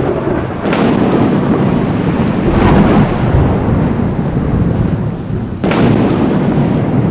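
Thunderstorm: steady heavy rain with three loud claps of thunder, a sharp one about a second in, a swell near three seconds and another sharp crack near six seconds, each rolling off into a long low rumble.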